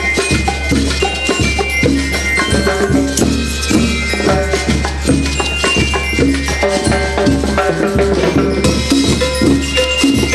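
School rhythm band playing: metal bell lyres ring out a quick melody over steady drums, congas and shaker-like percussion, with a steady low hum beneath.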